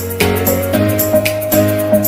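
Background music: a held, gliding melody over steady bass notes, with a light regular beat.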